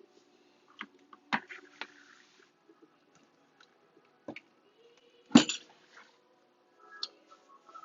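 Kitchen clatter of utensils and cookware: scattered light clicks and knocks, with one loud knock about five and a half seconds in.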